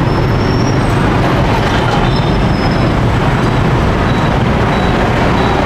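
Loud, steady roar and sizzle of shrimp-topped bread slices deep-frying in a pot of hot oil over a gas burner, with a deep rumble underneath.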